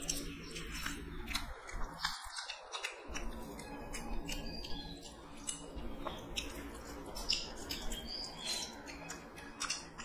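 Close-up eating sounds from two people eating rice and curry by hand: wet chewing and mouth smacks giving many short irregular clicks, with fingers squishing and mixing rice on steel plates.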